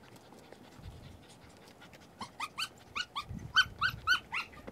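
A dog giving a quick run of short, high, rising whines or yips, about four a second, starting about halfway in and stopping just before the end.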